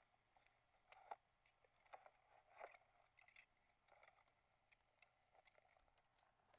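Faint handling noise of a camera being carried: scattered soft clicks, small rattles and rustles at an uneven pace, with the loudest knocks about a second in and at about two and a half seconds.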